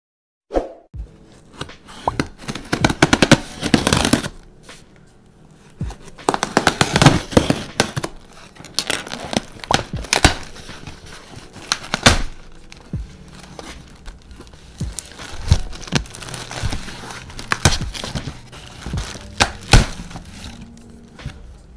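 A cardboard shipping box being opened by hand: packing tape rips off in several bursts, and the cardboard flaps scrape, rustle and knock as they are handled and pulled open.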